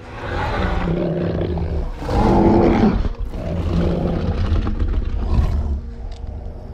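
Deep, rumbling growls and a roar from Kong, the giant ape of the film, in a few long stretches, loudest about two seconds in and easing off near the end.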